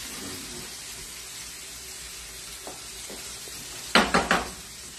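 Steak frying in a pan with a steady sizzle. About four seconds in, a spoon knocks sharply three times against the pan.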